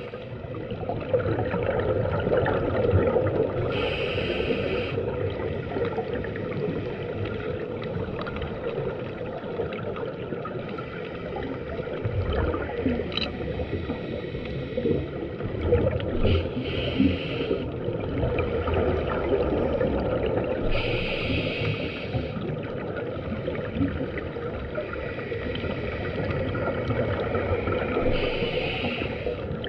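Muffled underwater noise picked up through a GoPro's dive housing, mostly a scuba diver's regulator breathing: a constant bubbling rumble, with a hissing breath through the regulator about four times, several seconds apart.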